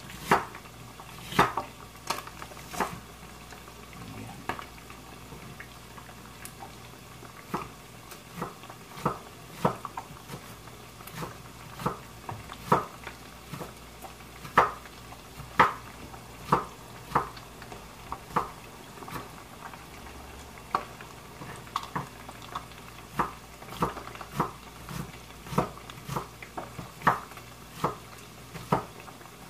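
Kitchen knife chopping red onion on a wooden cutting board: sharp, irregular knocks of the blade against the board, about one or two a second.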